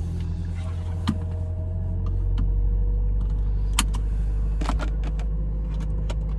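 Car cabin noise: a low, steady rumble of engine and road, with a few light clicks and knocks scattered through it.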